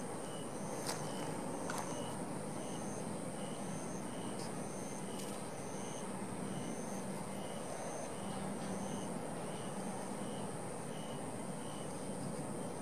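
Insects chirping outdoors: short, evenly spaced chirps, about two to three a second, over a constant high-pitched insect trill and steady background hiss.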